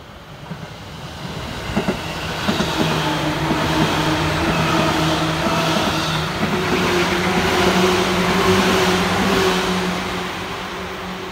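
Seibu new 2000 series electric train passing close by: the hum of its motors and the clack of its wheels over rail joints build to a loud pass and then begin to fade as it moves away.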